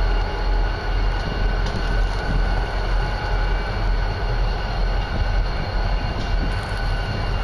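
Wind buffeting the microphone: a steady low rumble that swells and dips, with a hiss above it. The small cattail-fluff flame adds nothing that stands out.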